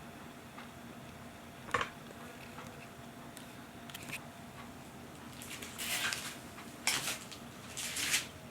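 A homemade electromagnetic doorbell under test: its spring-metal striker and contact click once about 2 s in, then give three short, rasping buzzes about a second apart near the end. The bell is not ringing properly.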